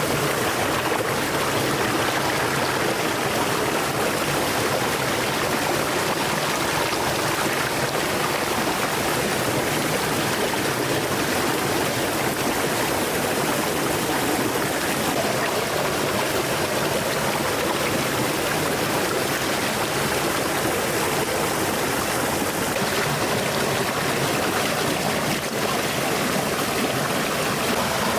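A stream of flowing water running over rocks, a steady rushing and trickling.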